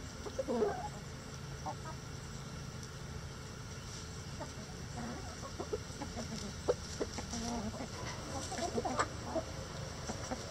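A flock of chickens clucking: scattered short, soft clucks, busier near the end.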